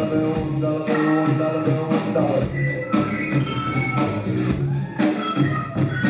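Rock band playing live through a concert PA: sustained chords with a heavy accent about once a second.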